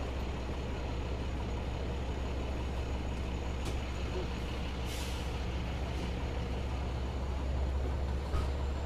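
Heavy diesel engines idling with a steady low hum, broken by short hisses of released air about three and a half and five seconds in.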